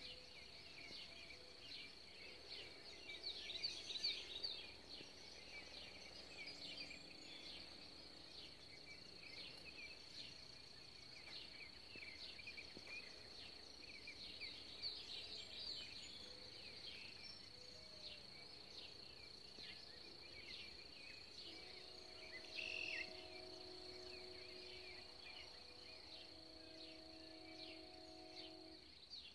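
Faint outdoor ambience of small birds chirping in quick, irregular high notes over a steady high-pitched whine. About two-thirds of the way through, a faint steady drone joins in.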